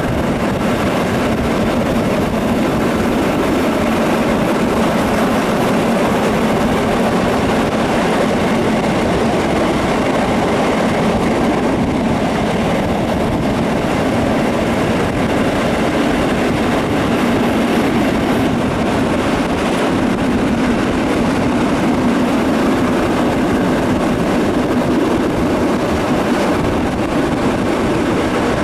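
Steam-hauled passenger train running at speed, heard from an open coach window: a steady, loud rolling rumble of the coach wheels on the rails.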